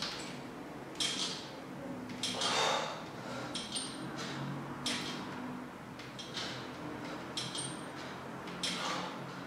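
Pull-ups on a wall-mounted metal pull-up bar: a hissy breath about every second and a half, one per rep, with light metallic clinks and creaks from the bar.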